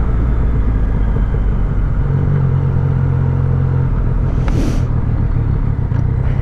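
Yamaha FZ-09's 847 cc three-cylinder engine running at low revs as the bike rolls slowly in traffic, a steady low drone that grows heavier for a couple of seconds midway. A short hiss comes about four and a half seconds in.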